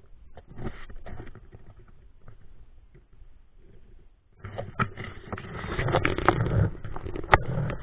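Handling noise from a body-worn action camera: rustling, clicks and knocks of rope and gear against the camera and the stone shaft wall. After a short lull it turns louder and busier from about four and a half seconds in, as the climber starts down into the shaft.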